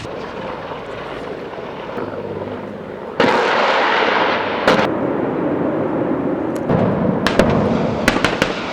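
Heavy weapons firing on a live-fire range: continuous rumbling between shots, a loud blast about three seconds in, more about a second and a half later and around seven seconds, then a quick run of sharp cracks near the end.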